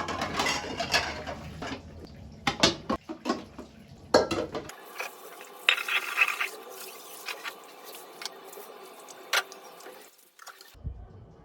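Dishes and cutlery clinking and knocking as they are handled, in a quick run of sharp knocks at first and then in a steadier stretch with only a few clinks.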